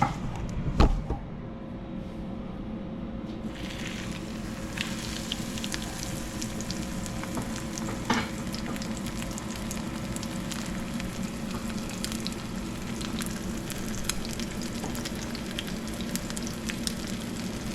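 Panko-and-sesame-crusted ahi tuna steak searing in hot oil in a skillet, a steady sizzle with fine crackling that grows brighter a few seconds in. A single knock about a second in.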